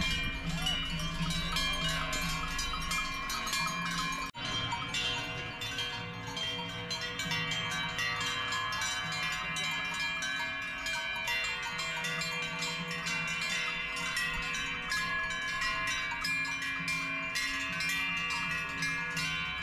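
A herd's large cowbells clanging and ringing without a break as the cows walk and graze, many overlapping bell tones in a dense jumble, with a brief dip about four seconds in.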